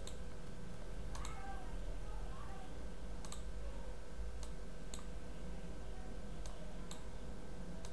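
Scattered single clicks of a computer mouse, about seven over the several seconds, over a steady low electrical hum.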